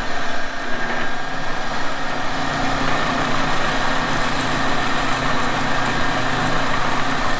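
Milling machine running steadily, its end mill being fed deeper into a spent lithium-ion phone battery: a constant machine hum and whine with hiss.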